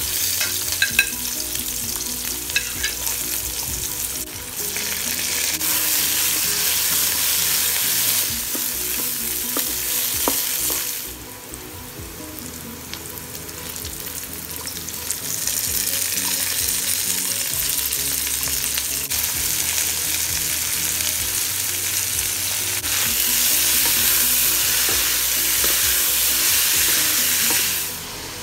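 Hot oil sizzling in a wok as sliced shallots and garlic drop in, then bean sprouts and dried chillies stir-frying. The sizzle swells and falls away sharply twice.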